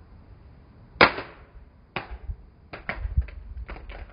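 Plastic flip phone knocking and clicking after a drop: a sharp knock about a second in, another about a second later, then a quick run of lighter clicks and taps.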